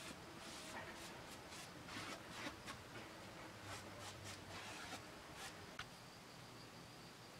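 Faint, irregular swishing of a cotton pad rubbing a sealing coat of 1-pound-cut shellac across a spruce soundboard. The strokes stop with a small click about six seconds in, leaving a faint steady high tone.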